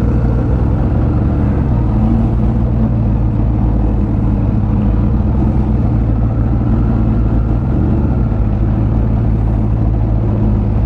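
A motor vehicle engine idling, a steady low drone that does not rise or fall.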